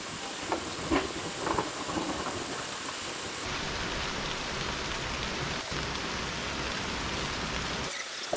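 Steady rain falling in a severe thunderstorm, an even hiss with a few separate drips tapping in the first couple of seconds.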